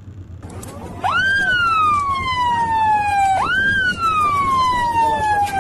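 Siren wailing: the pitch jumps up quickly and then glides slowly down, twice, over a noisy background.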